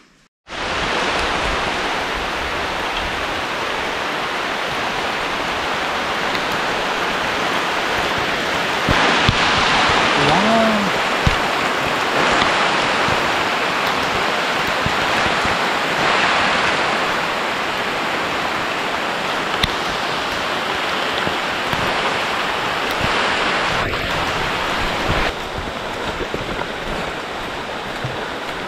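Steady heavy rain falling on forest foliage, heard as a dense, even hiss that starts suddenly just after the beginning and swells a little about nine seconds in.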